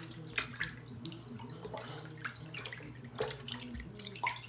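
Water sloshing and splashing in a filled bathroom sink as a soaked plush toy is swished through it by hand, in short irregular splashes.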